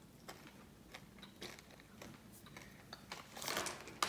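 Faint chewing of an M&M's Fudge Brownie candy, its hard sugar shell crunching before giving way to a soft cake-like centre, with scattered small clicks.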